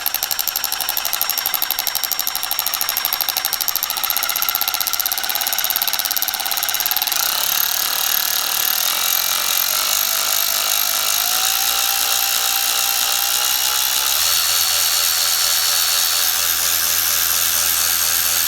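Milwaukee M12 1/4-inch brushed cordless ratchet running free on its variable-speed trigger: a steady motor whine with a fast rattle, its pitch stepping up about halfway through and then holding at the higher speed.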